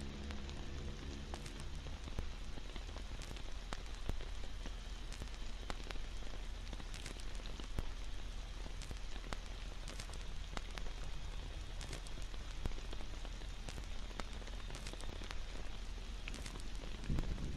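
Steady rain hiss with scattered sharp crackling ticks over a low hum.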